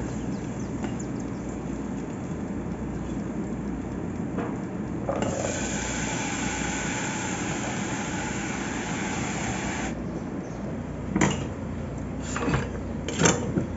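Chopped okra sizzling in a hot pot as it is tipped in, a steady hiss lasting about five seconds that cuts off suddenly. A few sharp knocks of kitchenware follow near the end.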